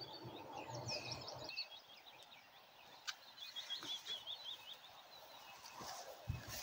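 Faint birdsong from several small songbirds, short chirps and a quick repeated trill, over soft rustling and a few light footfalls of someone walking through grass and low scrub.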